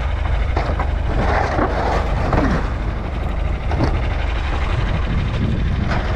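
Tractor-driven manure spreader running: a steady low engine drone under irregular rattling, clanking metal and short squeals.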